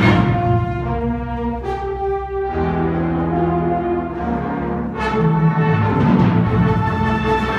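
High-school symphonic orchestra playing live, with brass to the fore: full held chords, and fresh chords entering about two seconds in and again about five seconds in.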